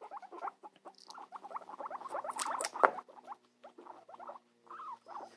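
Guinea pig chewing cucumber and carrot: a fast, uneven run of small crunching and nibbling sounds, busiest in the middle.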